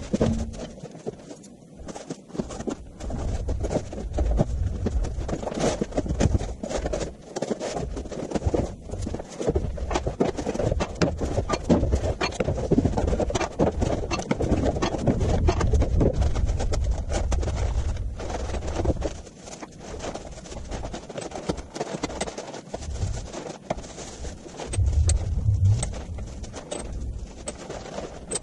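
Sped-up workshop audio of a CNC plasma table being assembled: a fast, dense jumble of clicks, knocks and clatter over a low rumble. It eases off for a few seconds past the middle, then picks up again.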